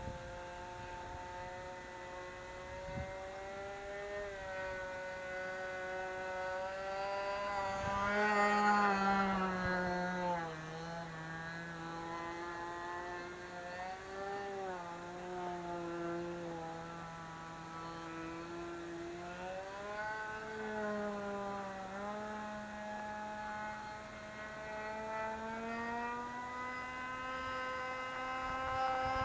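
Small model airplane engine running in flight, its pitch rising and falling as the plane flies around, loudest about eight to ten seconds in and building again near the end. It runs smoothly after its plugs were swapped.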